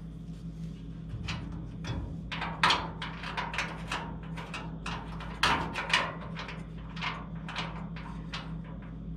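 Half-inch wrench clicking and knocking against steel bolts and a bracket as the bolts are worked, irregular metallic taps with a few louder knocks about two and a half and five and a half seconds in.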